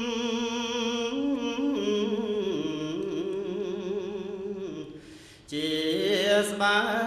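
Buddhist chanting by a single voice, in long held notes with a wavering vibrato that step up and down in pitch. There is a brief pause for breath about five seconds in.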